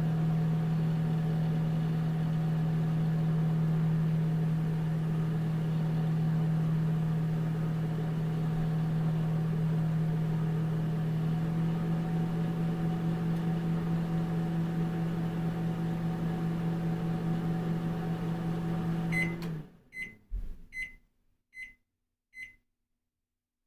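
Old National (Panasonic) microwave oven running with a steady hum, which cuts off near the end. It then beeps five times, evenly spaced, signalling that the heating cycle is done.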